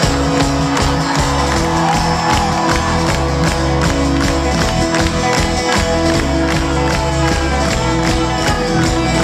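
Live folk-rock band playing an instrumental break between verses, with strummed acoustic guitar and other string instruments over a steady kick-drum beat, and a festival crowd cheering under the music.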